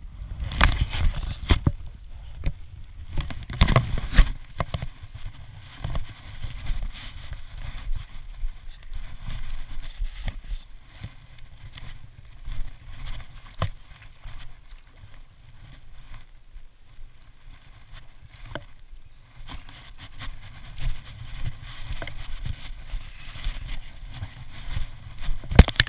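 Wind rumbling on a body-worn camera's microphone, with irregular knocks and rubbing from the camera being jostled, loudest about a second in, around four seconds in, and near the end.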